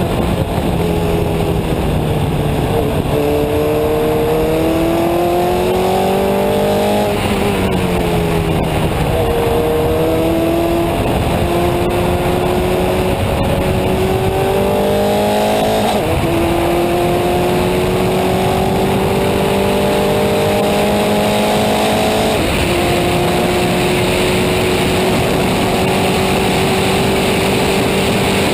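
Formel Masters race car's VW 1.6-litre four-cylinder engine heard on board at speed, its pitch climbing steadily through each gear and dropping at each of several gear changes, with one slower fall as it comes off the power.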